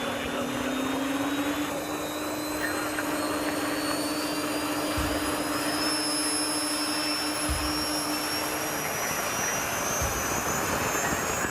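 Miniature turbine engine of a radio-controlled model jet running, with a high whine that rises slowly in pitch over a steady lower hum that stops about nine seconds in.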